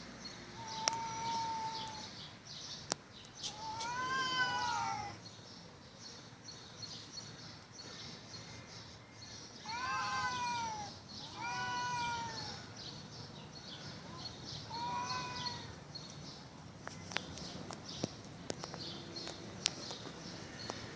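Domestic cats yowling at each other in a fight standoff: about five long, wavering caterwauls, each rising and then falling in pitch, separated by quiet gaps of several seconds.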